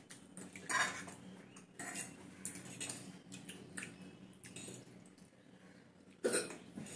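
Forks clinking and scraping on plates as several people eat chowmein, in irregular short clicks, the loudest about a second in and near the end, over a faint steady hum.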